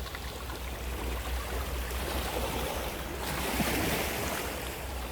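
Wind rumbling on the microphone over water splashing and lapping, a steady noisy wash with no clear single event.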